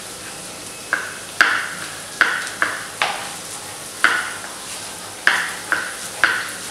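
Kitchen knife slicing vegetables on a cutting board: a sharp knock with each stroke, about ten in a loose, uneven rhythm, roughly two a second.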